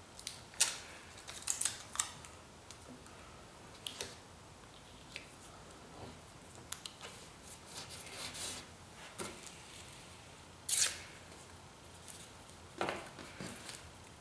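Adhesive tape being pulled off the roll and torn into short strips, heard as scattered crackling rips and rustles. Several come close together near the start, and the loudest, a rip of about half a second, comes near the end.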